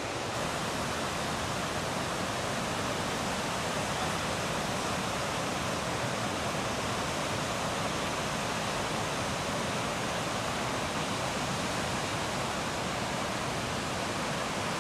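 Gullfoss waterfall on the Hvítá river: a steady, even rush of heavy falling water.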